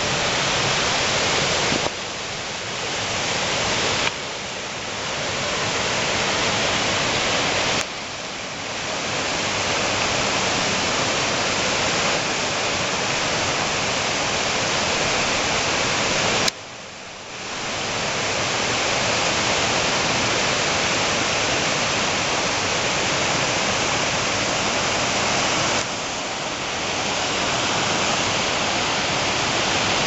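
Rushing mountain stream, swollen whitewater pouring over boulders in a steady rush, dipping abruptly in loudness for a moment a few times.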